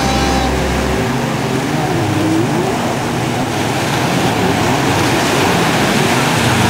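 Stand-up jet ski engine running and revving, its pitch rising and falling, over the wash of breaking surf.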